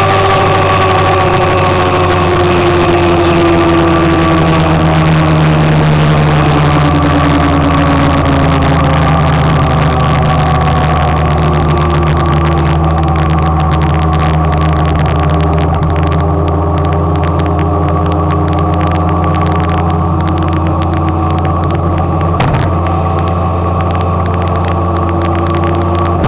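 Motor scooter engine running under way, its pitch falling over the first several seconds as it slows, then climbing again as it picks up speed, over steady road and wind noise. A single brief knock comes near the end.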